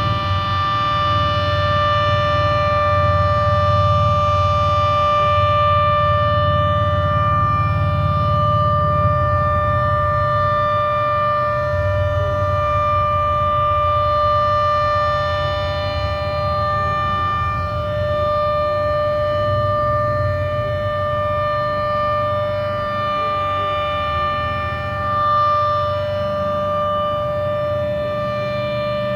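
Federal Signal Model 7B outdoor warning siren sounding its Alert signal: one steady, unchanging tone with a low rumble underneath.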